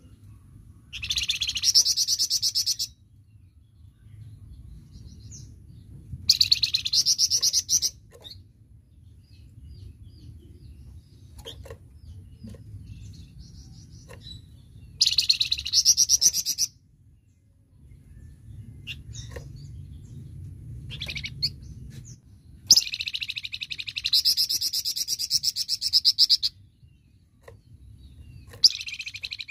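Flamboyan songbird singing in loud bursts of rapid, densely repeated high notes, each burst lasting about two to four seconds, five times, with a few faint single notes in the pauses. A low steady rumble runs underneath.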